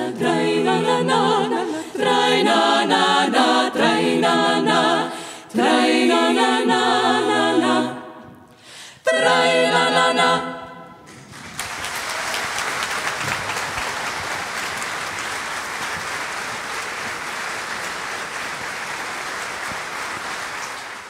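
Women's klapa singing a cappella in close harmony, several phrases with short breaks, the last one ending about eleven seconds in. Then an audience applauds steadily.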